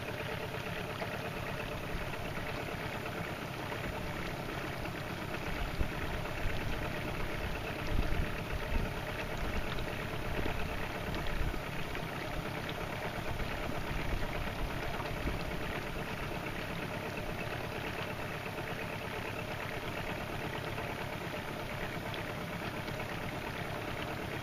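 Small boat's outboard motor idling steadily, with uneven low rumbling swelling for a few seconds in the middle.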